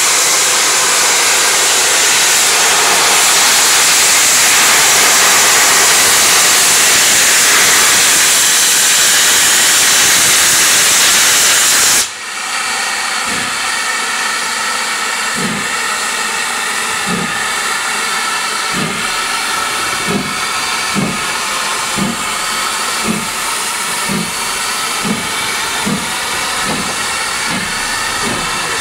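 GWR Manor-class 4-6-0 steam locomotive 7822 Foxcote Manor letting off steam: a loud, steady hiss that cuts off suddenly about twelve seconds in. It is followed by a quieter steady hiss with a ringing edge and soft low beats about once a second.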